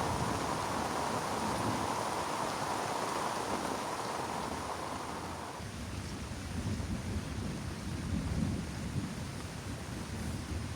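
Heavy rain falling steadily, with low thunder rumbling through the second half. About halfway through, the higher part of the rain hiss drops away suddenly.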